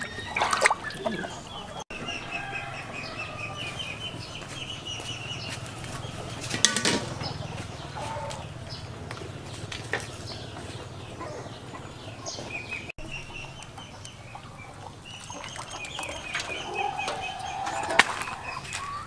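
Chickens clucking in a run of short repeated calls, with a few sharp clatters and splashes from a ladle and hands in a steel pot of water: one near the start, one about a third of the way in, one near the end.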